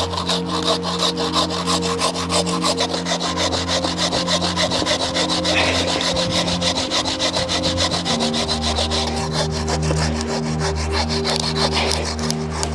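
Rapid, rhythmic back-and-forth sawing strokes from a hand saw, over background music with held notes that change about two-thirds of the way through.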